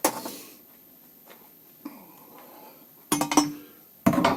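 Home-made metal brackets clinking and clanking as they are handled and set in place: a sharp knock with a short ring at the start, then a cluster of clinks about three seconds in and another about four seconds in.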